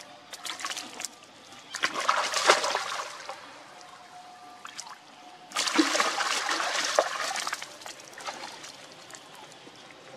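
Young macaques splashing and swimming in a pond, in bursts of splashing. The loudest burst comes about two seconds in and another long one from about five and a half seconds in.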